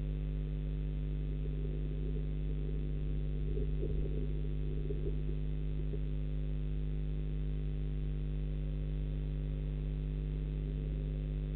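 Steady electrical mains hum made of several constant tones, as picked up on a webcam's sound line. A faint, irregular scratchy noise sits on top of it for a few seconds, starting about a second and a half in.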